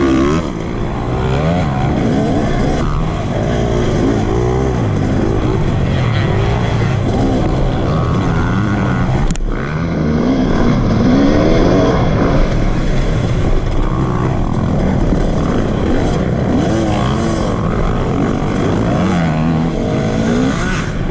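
KTM two-stroke dirt bike engine heard from on board, revving up and down repeatedly as the rider works the throttle through the race course, over a steady rumble of wheels and wind. A sharp knock cuts through about nine seconds in.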